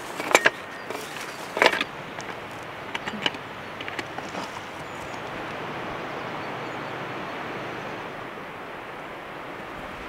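Dry leaves and twigs crunching and rustling a few times during the first few seconds, followed by a steady, even outdoor hiss.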